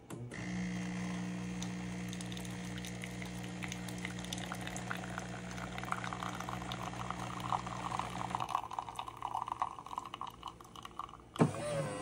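Café Affetto automatic espresso machine's pump humming steadily as it pours water from its spout into a glass mug, the splashing rising in pitch as the mug fills. The pump stops about eight and a half seconds in, the stream trickles on briefly, and a sharp click comes near the end.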